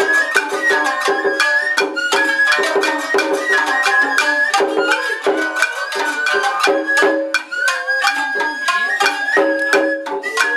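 Nagauta ensemble playing: shamisen plucked in quick notes, a shinobue bamboo flute carrying a high melody, and crisp taiko and hand-drum strikes throughout.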